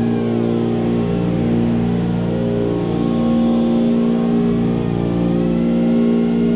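Motors and propellers of an iFlight Chimera 4 FPV quadcopter in flight, a steady buzzing whine. Higher tones slide down in the first second or so and rise and fall again later as the throttle changes.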